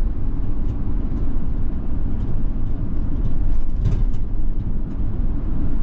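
Delivery van driving, heard from inside the cab: a steady low rumble of engine and road noise.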